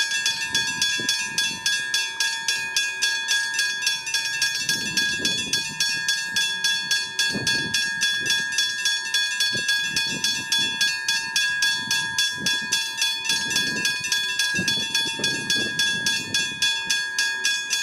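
Westinghouse hybrid level-crossing bell ringing continuously with rapid, even strikes, about four a second, the warning that a train is approaching the crossing.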